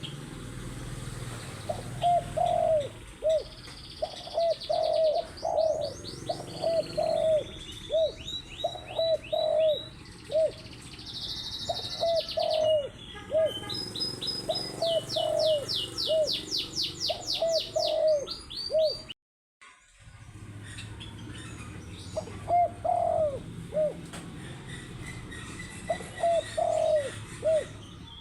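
Spotted dove (tekukur) cooing over and over in short repeated phrases. For much of the time other small birds sing quick high-pitched trills over it. The sound cuts out completely for a moment about two-thirds of the way through.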